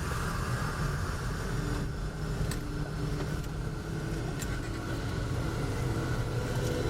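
Car driving, with a steady low rumble from the engine and the road and a few light clicks.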